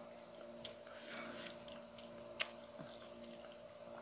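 A person quietly chewing food with the mouth closed: faint, scattered small clicks of the mouth, one a little sharper about two and a half seconds in. A faint steady hum runs underneath.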